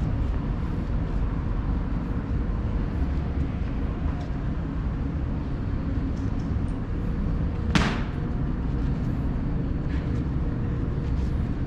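Steady low rumble of a large indoor airport concourse, with a faint steady hum. One sharp click about eight seconds in.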